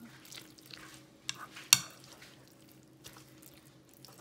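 A utensil stirring a wet fish-cake batter in a bowl, with soft squishing and a few sharp clinks against the bowl, the loudest about a second and three-quarters in.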